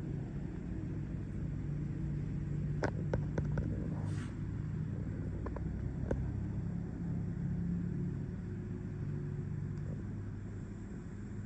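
Steady low hum, with a quick cluster of sharp clicks about three seconds in and a couple more a few seconds later.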